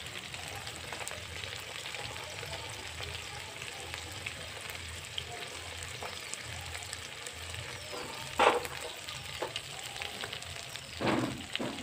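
Small garai fish shallow-frying in hot mustard and refined oil in a kadhai, a steady sizzle with light crackles. Two short, louder clatters come in the second half as the pan is gripped and turned.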